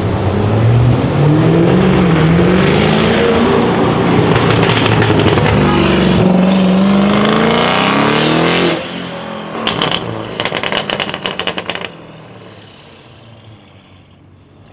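Audi RS6 C7's twin-turbo V8 with a custom straight-pipe exhaust accelerating hard, its pitch climbing through one gear, dropping at a shift about six seconds in and climbing again. The driver then lifts off and the exhaust fires a rapid run of crackles and pops for about two seconds before the sound fades away.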